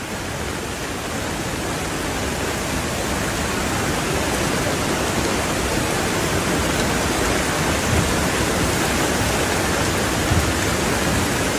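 Flash floodwater rushing down a street as a dense, steady wash of water noise, growing slightly louder over the first few seconds. Two brief low thumps come near the end.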